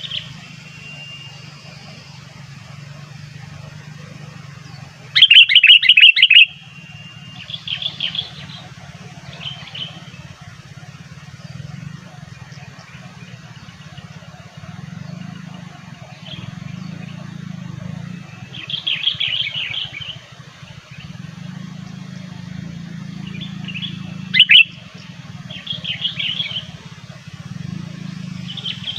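Sooty-headed bulbul (kutilang) calling in short bursts of rapid, bubbly chirps, the loudest about five seconds in, over a steady low hum.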